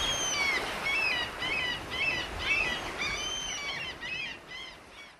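Birds chirping in quick, repeated calls that rise and fall in pitch, over a steady wash of surf. Both fade away near the end.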